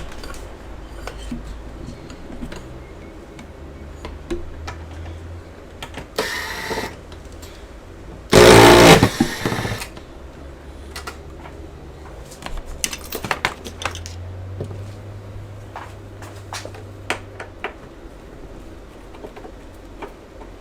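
Hand work on the plastic casing and parts of an all-in-one computer: scattered clicks and small knocks, with a short rushing noise about six seconds in and a louder one of about a second and a half around eight seconds in.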